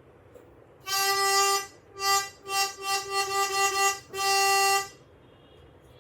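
Car horn honking: one long blast, then a quick run of short honks, then another long blast.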